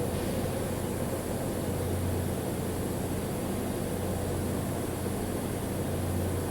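Steady electrical hum with an even hiss from welding equipment at work on stainless steel pipe, with no crackle or spatter.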